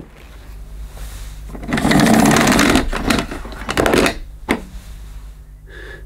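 Rotary telephone dial being dialled: the dial whirs back with rapid clicking in a few runs, as for an emergency call, followed by a single click.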